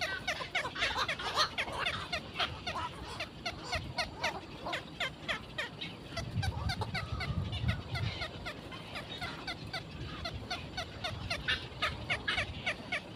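Many birds calling at once: a continuous, dense run of short, quick, downward-sliding chirps. About six seconds in, a heron lands on the stick nest, and there is low flapping of wings and rustling of twigs for a couple of seconds.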